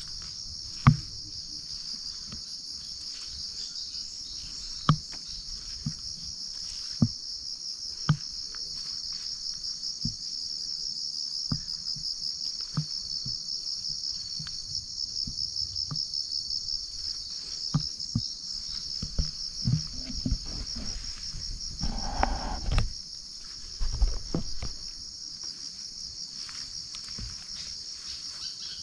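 Tropical insect chorus: a steady, high, finely pulsing buzz. Scattered sharp clicks and knocks break through it, the loudest about a second in, with a short rustling burst about three quarters of the way through.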